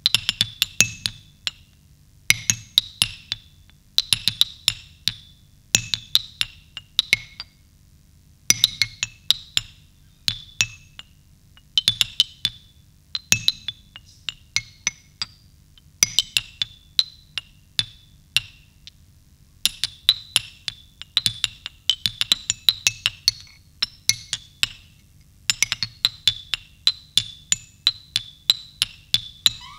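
Live percussion for a dance performance: dry, sharp clicks and knocks struck in quick clusters, a burst every one to two seconds, over a faint low hum.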